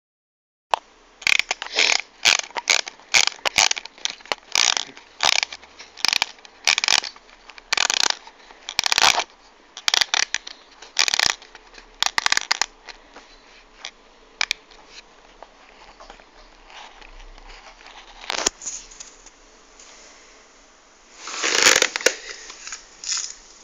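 Scraping and crinkling noises in quick irregular bursts, one or two a second. They thin out midway, and a longer, louder burst comes near the end.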